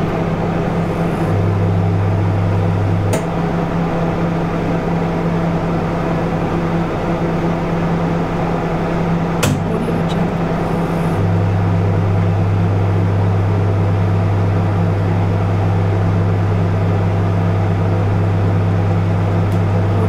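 Microwave oven running as it heats food: a steady whir with a low electrical hum. The hum grows louder about a second in, drops back with a faint click around three seconds, and swells again a little past the halfway point; another faint click comes in between.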